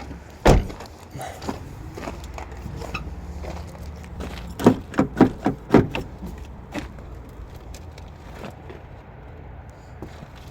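Handling of a car seatbelt and its fittings: a sharp click about half a second in, then a quick run of five or six clicks and knocks around the middle, over a low steady hum.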